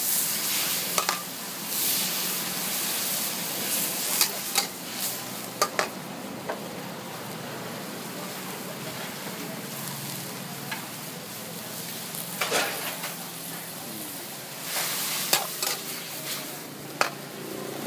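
Fried rice sizzling in a hot pan as it is stir-fried. A spatula clanks and scrapes against the pan every second or two.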